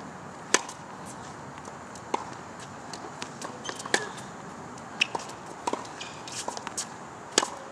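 Tennis rally on a hard court: sharp pops of a racket striking the ball, strongest about half a second in, near four seconds and just before the end, with fainter ball bounces and hits in between.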